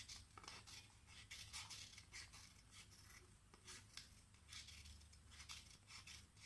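Scissors snipping through thin red card in a quick, uneven run of faint snips, cutting a paper circle round into a spiral.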